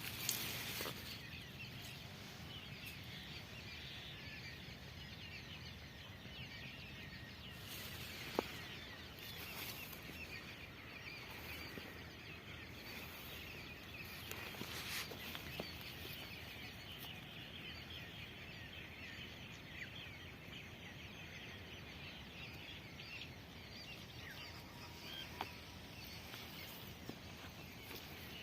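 Faint outdoor ambience full of small bird chirps and calls, with a sharp click about eight seconds in and a few softer ticks.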